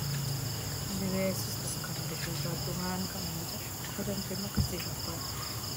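Crickets chirring steadily and evenly, with a soft voice praying under them and a single short knock about two-thirds of the way through.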